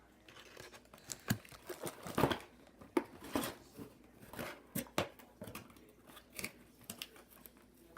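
Scissors snipping and plastic toy packaging crinkling in a series of irregular short clicks and rustles, as twist ties are cut off.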